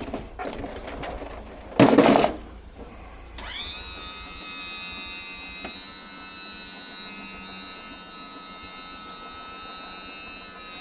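A loud clatter about two seconds in, then a motor spins up quickly, runs at a steady high whine for about seven seconds and winds down at the end.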